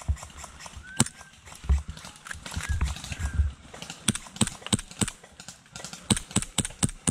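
Airsoft gun firing single shots: a few scattered shots at first, then a quick even run of about three a second from about four seconds in.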